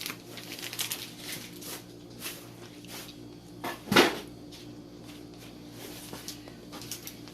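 Kitchen handling sounds: a few light, scattered knocks and one louder knock about four seconds in, over a low steady hum.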